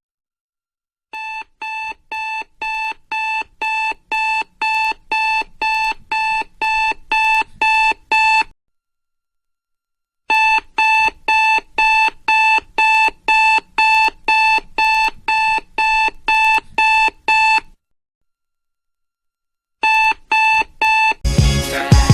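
Electronic alarm clock beeping, about two short beeps a second, in three runs separated by pauses of about two seconds; the first run grows louder. Music starts near the end.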